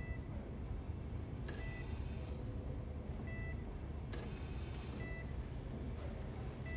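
Hospital patient monitor beeping steadily, one short high beep about every second and a half to two seconds, over a low steady hum. A brief click and hiss also recurs every two to three seconds.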